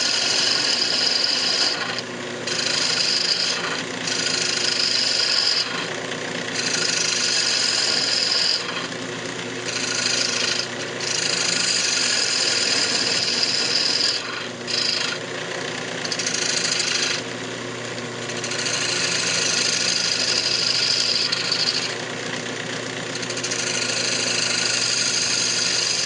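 Spindle gouge cutting into a cherry bowl spinning on a wood lathe, cleaning out the centre in repeated passes with short breaks, over the steady hum of the lathe.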